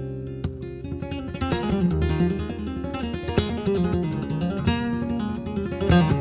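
Solo flamenco guitar playing bulerías por soleá: a few ringing notes, then from about a second and a half in a run of quick picked notes broken by sharp strummed strokes.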